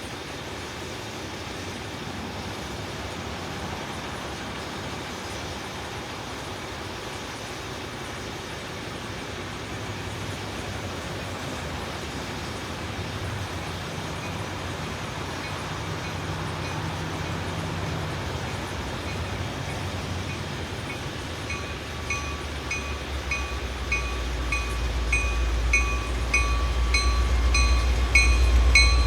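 A CPKC continuous-welded-rail train approaching, its rumble growing steadily louder. In the last quarter a deep locomotive rumble builds and regular clicks start, about one and a half a second, as the wheels roll over the track.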